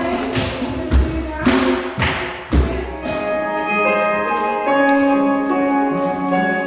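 Music with several heavy thuds during the first half, then sustained organ-like chords from about three seconds in.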